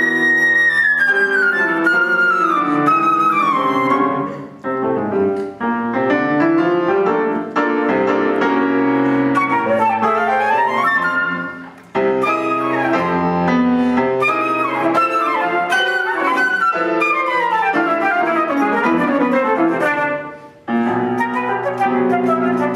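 Concert flute and grand piano playing a chamber duo together, with fast falling runs of notes and a few short breaks between phrases.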